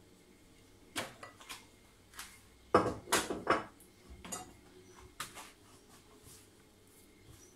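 Wooden spoon knocking and scraping dough out of a mixing bowl onto a granite worktop: a string of separate knocks and clatters, the loudest cluster about three seconds in, then a few lighter taps.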